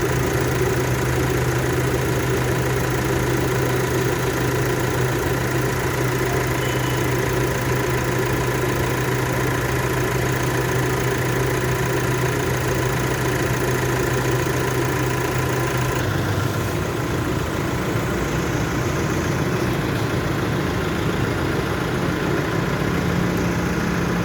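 Nissan Calibre engine idling with a steady hum. About 16 s in the note changes abruptly, and the low hum then rises slowly in pitch.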